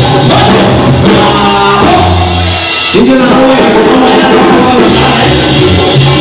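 Loud dance music with singing, guitar and drums.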